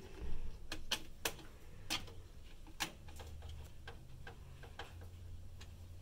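Irregular sharp metallic clicks and ticks, more of them in the first three seconds, as a hand screwdriver turns a motherboard screw into a standoff in a metal PC case.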